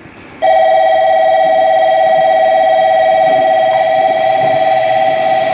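Station platform's train-approach warning sounding: a loud, steady electronic two-tone alarm that switches on abruptly about half a second in and holds without change. It signals an approaching train.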